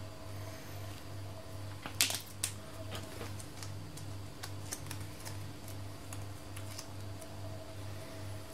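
A few sharp clicks about two seconds in and some lighter ticks, from hands handling a phone's mainboard and connectors on the bench, over a steady low hum that pulses about two and a half times a second.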